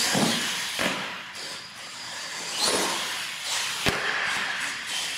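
R/C monster truck running on a concrete floor: its electric motors and tyres swell and fade with the throttle, broken by sharp knocks of the truck hitting the floor and ramps, the loudest a crack about four seconds in.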